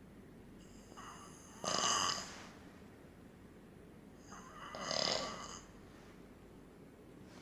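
A sleeping man snoring heavily: two snores about three seconds apart, with quiet breathing between.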